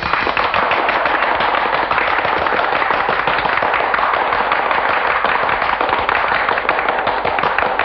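Audience applauding: many hands clapping in a dense, steady clatter.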